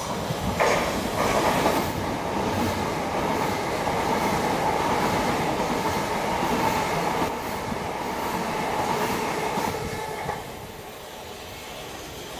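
Southern electric multiple unit running past close by along the platform line, a steady loud rush of wheel and traction noise that starts about half a second in and dies down about ten seconds in.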